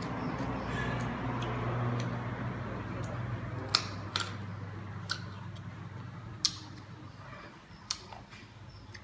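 Crunchy bites of crisp green June plums (ambarella) being eaten: five short, sharp crunches spread over the second half, over a steady low hum.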